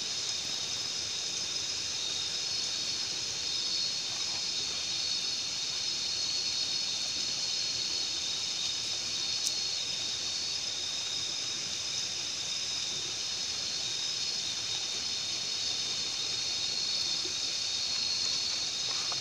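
Steady night-time riverside ambience: running river water with a constant high-pitched drone of night insects over it.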